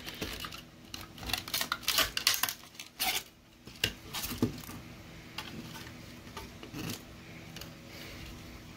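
A metal blade scraping and clicking against a 3D-printed plastic head as it pries the printed base plate off the bottom. A quick run of sharp clicks and scrapes over the first three seconds, then a few scattered ones.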